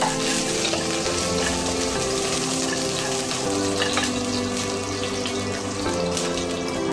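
Instrumental background music of held notes that change every half second or so, over a steady hiss.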